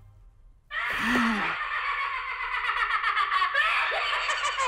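Cartoon hyena's cackling laughter, thin and tinny as if through a megaphone, starting a moment in after a short quiet; a short low grunt sounds about a second in.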